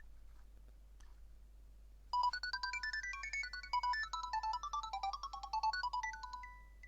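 A Nokia 7710 ringtone: a fast, bright electronic melody of short stepping notes. It starts about two seconds in, wanders downward and ends on a longer held note.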